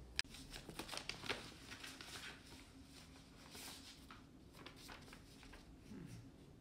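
Paper rustling and crinkling as a note and envelope are handled, in a string of short, faint rustles, with one sharp click just after the start.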